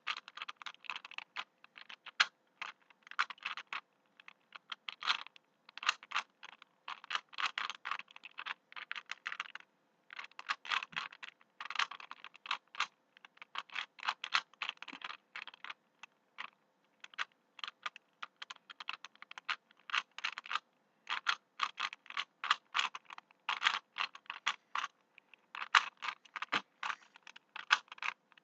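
A 3×3 Rubik's cube being turned fast during a speedsolve: the plastic layers click and clack in quick runs, with brief pauses now and then.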